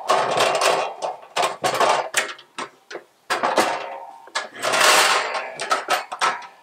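Metal rattling, clattering and scraping as an Expert Grill 17.5" portable gas grill is flipped over and its wire fold-out legs are swung into place, with knocks against a wooden table. It comes as a run of clicks and scrapes, the longest about five seconds in.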